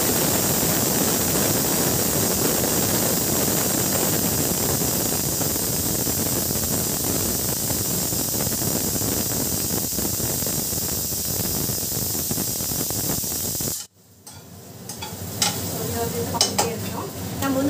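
Marinated pieces shallow-frying in oil in a non-stick pan, a steady sizzle as they are turned. The sizzle drops out suddenly about 14 seconds in, then comes back quieter with a few sharp spatula clicks on the pan.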